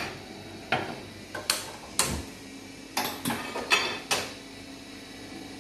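Cookware being handled and set down on a gas stovetop: about eight sharp clinks and knocks. A steady low hum sets in about two seconds in.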